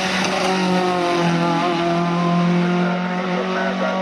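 Renault Clio RS III's 2.0-litre four-cylinder racing engine running hard at high revs as the car climbs, its pitch nearly steady.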